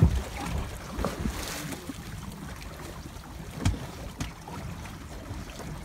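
Wind buffeting the microphone over choppy open sea, with water lapping and splashing and a few sharp knocks, the strongest a little before four seconds in.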